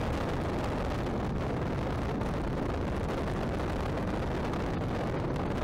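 Steady rush of wind and riding noise on the microphone of a camera mounted on a moving Kawasaki KLR 650 motorcycle, with no distinct engine note standing out.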